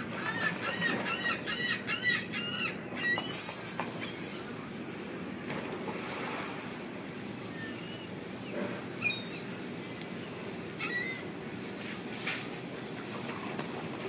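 A gull calling in a fast run of rising-and-falling notes, about three a second, for the first three seconds, then a few single short calls. A steady low hum runs underneath.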